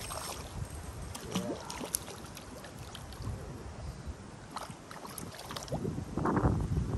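Hooked white bass splashing at the surface beside a plastic kayak as it is reeled in, with scattered clicks and knocks from the rod, reel and hull. The loudest splash comes near the end.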